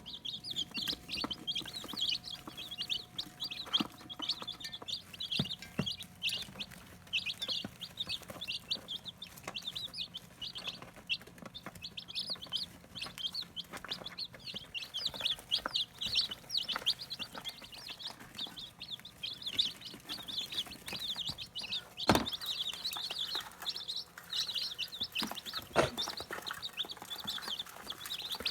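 A brooder full of day-old Barred Rock and Cinnamon Queen chicks peeping continuously in a dense chorus of short, high chirps. Two sharp knocks stand out, one a bit past the middle and one near the end.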